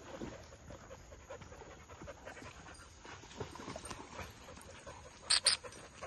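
Several dogs panting, then one dog gives two short, loud barks in quick succession about five seconds in.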